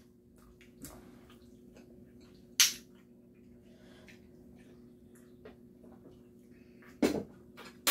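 Two people drinking from soda cans: faint sips and swallows with scattered small clicks, one sharper click about two and a half seconds in and another near the end. A steady low hum runs underneath.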